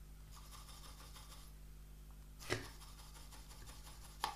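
Soldering iron tip rubbed in a tin of tip-cleaning paste: faint scratchy rubbing for about a second, then two sharp taps about two seconds apart, the second near the end.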